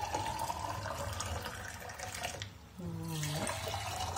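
Boiling water poured from a stainless-steel kettle into empty glass jars in a stainless-steel sink, the pitch of the pour rising as a jar fills; the jars are being preheated before hot preserves go in. The stream stops briefly about two and a half seconds in, then starts again.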